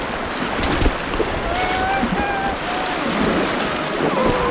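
River water rushing around a kayak, with wind buffeting the microphone: a steady, even noise.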